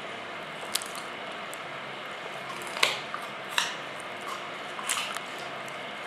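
A dog chewing a raw carrot with its side teeth: a few sharp, separate crunches, the loudest about three seconds in.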